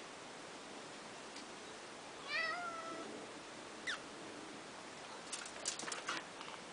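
A black cat meows once, a wavering call of under a second, then gives a short cry that drops sharply in pitch about a second and a half later. Near the end there is a quick cluster of sharp clicks and scrapes.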